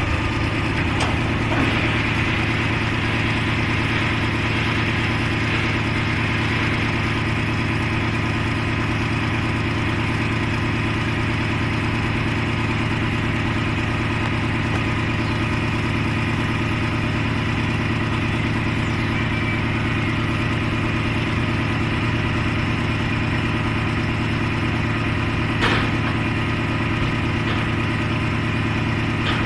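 A dump truck's diesel engine idling steadily, a constant low hum, with one brief knock near the end.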